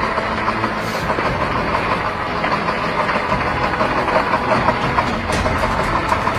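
Ural off-road truck's engine running steadily as the truck drives through deep snow.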